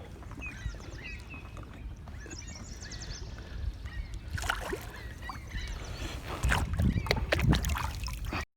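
Kayak paddling on open water: paddle splashes and knocks against the hull, over a steady rumble of wind on the microphone. The strokes get louder and more frequent in the second half, and the sound cuts off suddenly near the end.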